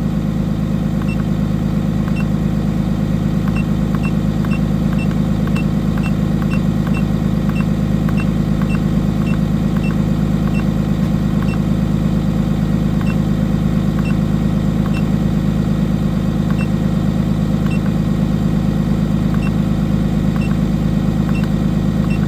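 Cummins B6.7 inline-six diesel bus engine running steadily at raised idle during a parked forced DPF regeneration. A faint high tick repeats about once a second.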